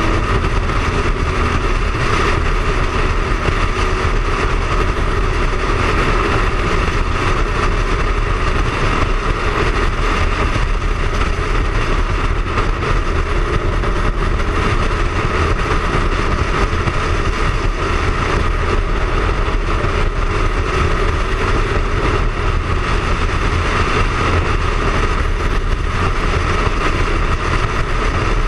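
Triumph Speed Triple's three-cylinder engine running at a steady cruise under rushing wind and road noise, picked up by a camera mounted on the bike.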